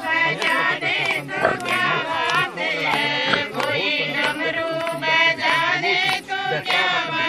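A group of women singing a devotional song together, with hand claps.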